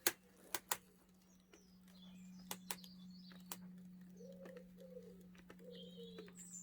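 A pigeon cooing, a run of four or five low coos in the second half, with faint chirping of small birds. A few sharp clicks or snaps come in the first few seconds, over a steady low hum.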